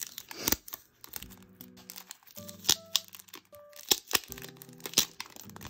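Packaging wrapped around mini posters being crinkled and torn open by hand: a string of sharp crackles and rips, under soft background music.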